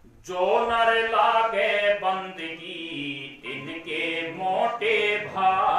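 A man chanting a devotional verse in a melodic, held voice into a handheld microphone, starting about a quarter second in after a brief pause.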